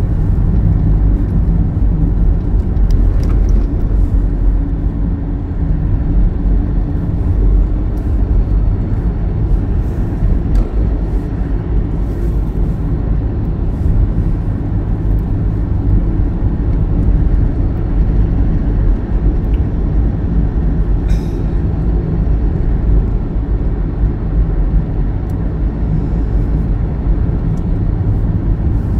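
Vehicle driving on a snowy, icy road, heard from inside the cabin: a steady low rumble of engine and tyre noise.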